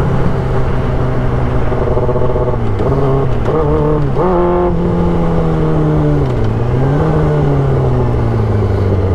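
Yamaha YZF-R6's inline-four engine running under way, its pitch dipping and climbing a few times with the throttle, then easing down slowly.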